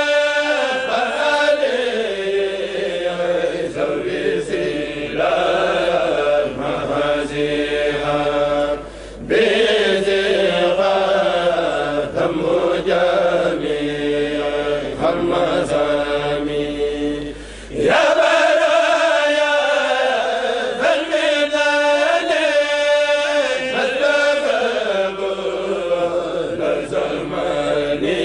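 Male kourel group chanting a Mouride khassida (Arabic religious poem) together in a slow, melismatic melody, with two brief breaths between lines, about 9 and 18 seconds in.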